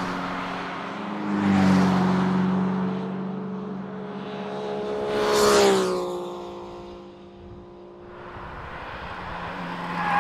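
A motorcycle and then Ferrari sports cars driving past one after another, engines swelling as each approaches; the loudest pass comes about five and a half seconds in, its pitch dropping sharply as it goes by. Another car's engine builds up near the end.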